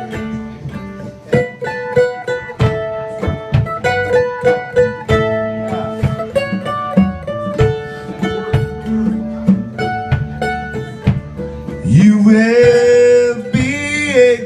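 Live band in an instrumental break between verses: fast picked mandolin notes over drums. About twelve seconds in, a louder sustained lead line comes in, bending up and down in pitch.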